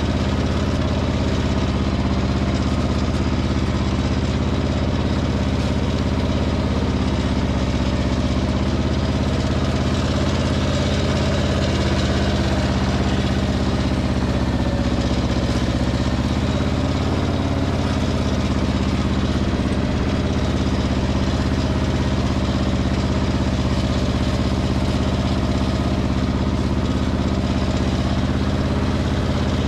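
Pasquali 425 compact tractor's two-cylinder engine running steadily, with no change in speed.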